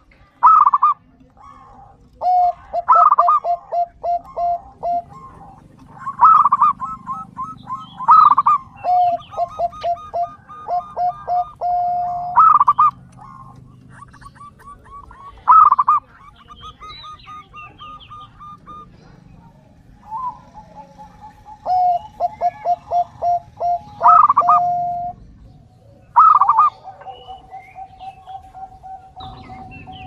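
Zebra dove singing: repeated phrases every few seconds, each a loud higher note followed by a quick run of short, lower staccato coos at about four a second.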